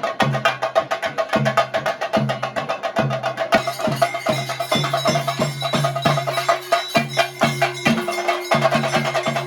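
Chenda drums of Kerala ritual percussion, beaten fast and hard with sticks over a repeating deeper drum pulse, with a steady ringing tone above. The sound turns brighter and fuller about three and a half seconds in.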